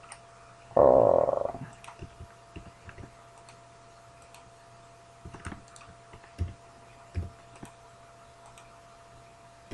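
A man's short croaky "hmm", then scattered, irregular computer mouse and keyboard clicks over a faint steady electrical hum.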